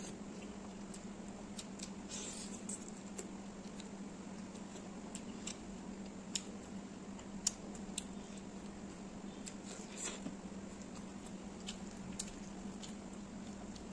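Eating by hand: chewing and short wet mouth clicks, with fingers squishing rice on the plate, as irregular scattered clicks over a steady low hum.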